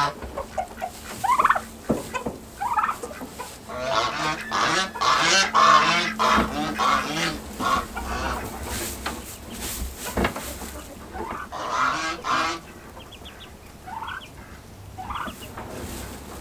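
Farm poultry calling with repeated short honking calls, thickest in two bouts about four to seven seconds in and again near twelve seconds.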